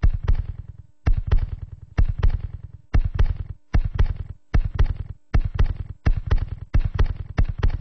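Rhythmic percussive sound effect on a report's soundtrack: clusters of sharp crackling clicks over deep thuds, repeating a little faster than once a second, with a faint steady hum beneath.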